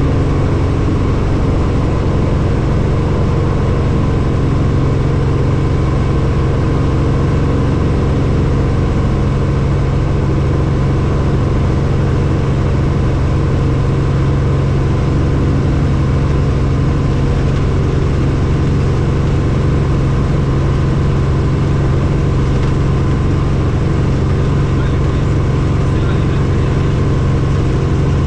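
Helicopter running steadily: a loud, even drone with a strong low hum and several steady tones above it.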